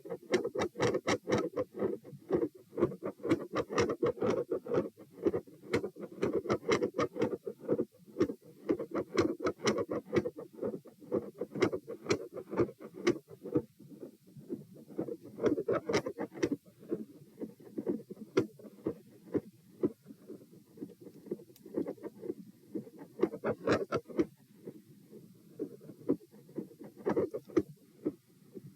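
Heart sounds heard through a stethoscope at a fast rate of about 120 beats per minute. The S1 and S2 sounds vary greatly in loudness, with stretches where the beats become very quiet. Sharp clicks run through the beats.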